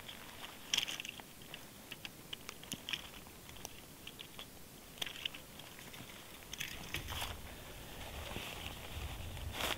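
Scattered crunches and clicks of a person moving about in deep snow and handling gear, footsteps crunching in the snow. A low rumble rises in the last few seconds.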